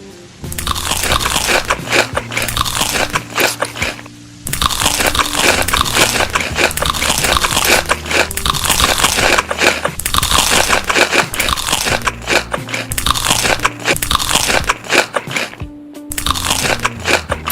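Loud, close-miked crunching as crisp food is bitten and chewed, pausing briefly twice, over background music.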